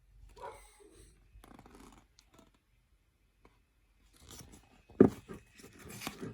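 Paper rustling and crinkling as a picture book's pages are handled and turned, with one sharp flap about five seconds in.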